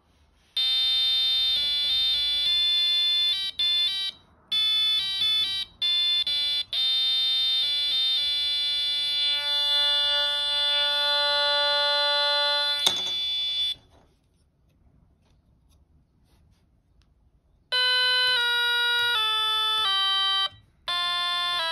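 A 555-timer electronic piano kit playing harsh, buzzy square-wave notes through its small 4 cm speaker: a run of short notes at changing pitches, then one note held for about five seconds. A click sounds near the end of the held note, and after a pause of about four seconds more short notes follow.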